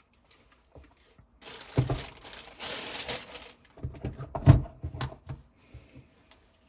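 Packaging being handled during an unboxing: a couple of seconds of crinkling and rustling, then a series of knocks and clicks, the loudest a single hard knock about halfway through.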